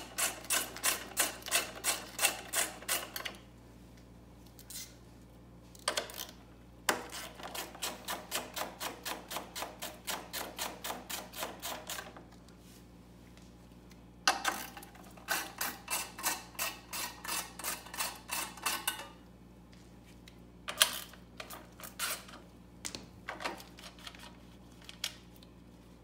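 Socket ratchet wrench clicking in long even runs of about three clicks a second as bolts are backed out of a snowblower's lower engine shroud, with short pauses between bolts. Near the end come a few scattered single clicks and knocks.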